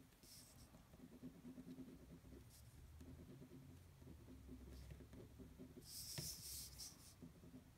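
Faint scratching of a ballpoint pen sketching short strokes on paper, with a louder paper rustle about six seconds in as the sheet is turned on the wooden table.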